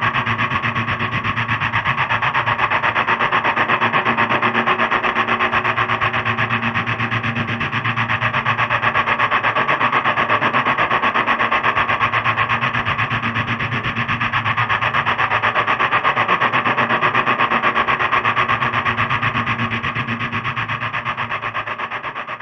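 Multirotor drone's electric motors and propellers buzzing steadily in a hover, with a fast even pulsing and a slight swell and dip in level, fading near the end.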